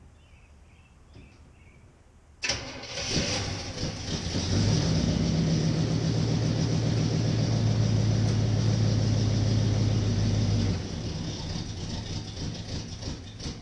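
Chevy 350 V8 in an old Chevy truck being started: it cranks about two seconds in, catches and runs steadily and loudly, then settles to a quieter, rougher run near the end.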